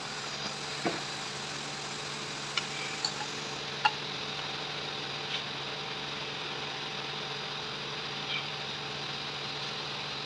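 Steady machine hum in a workshop, with a handful of short metallic clicks as an adjustable spanner works a fitting on a steel valve manifold block; the sharpest click comes about four seconds in.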